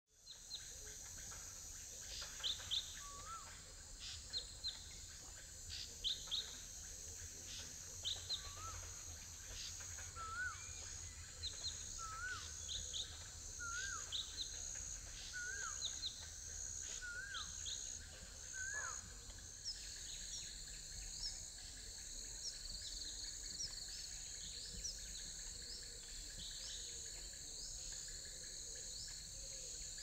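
Several birds calling over a steady high-pitched insect drone. One bird repeats a short rising call about once a second through the first two-thirds, with sharper high chirps throughout.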